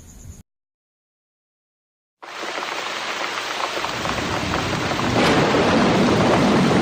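After about two seconds of silence, a dense rushing noise like heavy rain with thunder sets in and grows louder.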